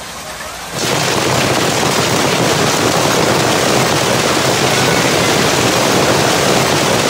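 Heavy hail pelting down in a dense, steady hiss. It is quieter for the first second, then jumps suddenly much louder and holds.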